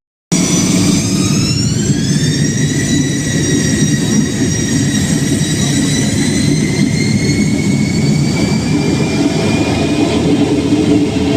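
Airliner jet engines heard from the cabin: a whine that rises in pitch over about two seconds, then holds steady and creeps slowly higher over a constant low rumble. The sound cuts out briefly at the very start.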